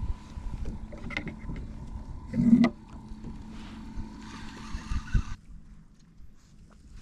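A fishing kayak on the water: low rumbling of water and handling against the plastic hull, with a single loud thump about two and a half seconds in. A faint steady tone runs underneath and stops about five seconds in.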